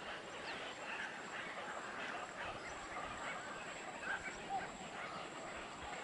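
A colony of water birds calling: many short, overlapping calls over one another, with a thin steady high tone behind them.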